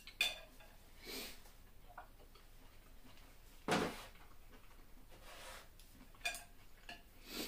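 A few light clicks and knocks of tableware: wooden chopsticks laid on a plate and a mug set down on a stainless-steel counter, the loudest knock a little before the middle.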